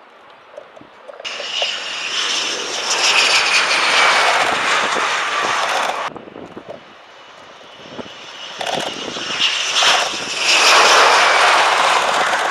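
Panavia Tornado GR4 jet flying low on landing approach with its gear down: the twin RB199 turbofans roar with a high whine that falls in pitch as it passes. The sound cuts off suddenly about six seconds in, then a second Tornado pass swells up loud near the end.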